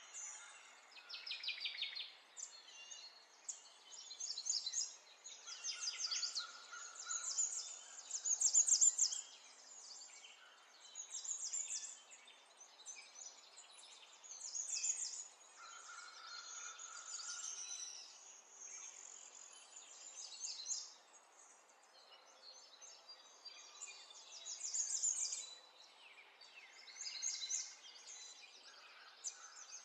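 Small birds chirping and trilling in short, rapid, high-pitched phrases that come again and again with brief pauses between, over a faint outdoor hiss.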